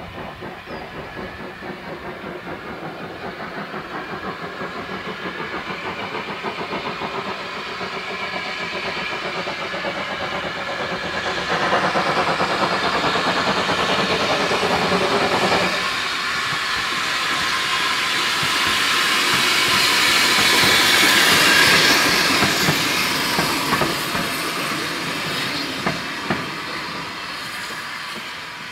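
Avonside 0-4-0 saddle tank No. 1340 'Trojan' working a coach, with steady chuffing exhaust beats that grow louder as it approaches and passes, then fade away. Steam hiss is louder for about four seconds in the middle. A few wheel clicks over rail joints come near the end.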